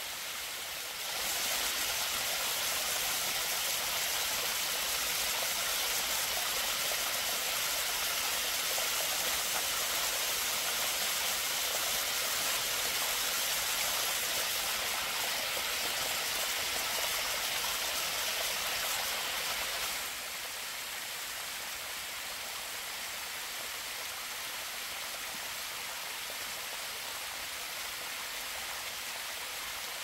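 Steady rushing of water cascading down a rock-face waterfall. It swells up about a second in and drops a little about two-thirds of the way through.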